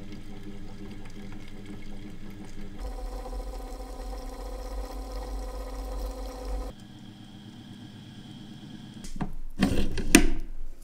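Watch-cleaning machine motor running steadily, spinning the parts basket in a jar of cleaning solution. It hums louder and deeper for a few seconds in the middle. Near the end come several loud knocks and rattles.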